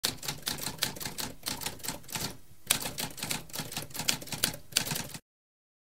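Typewriter keys striking in quick succession, with a brief pause about halfway and a sharper stroke right after, stopping abruptly about five seconds in.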